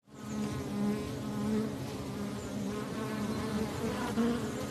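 A honeybee buzzing: a steady, low hum that wavers slightly in pitch.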